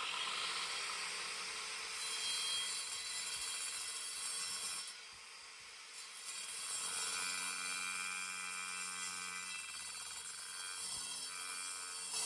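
Firebricks being sawn down to size for forge doors: a steady rasping cut that eases off briefly about five seconds in, then resumes.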